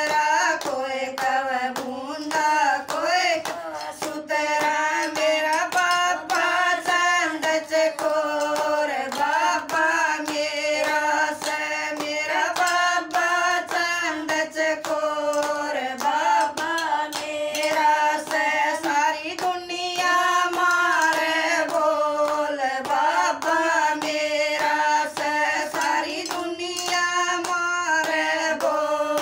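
Women singing a devotional bhajan in unison, without instruments, keeping a steady beat with hand claps.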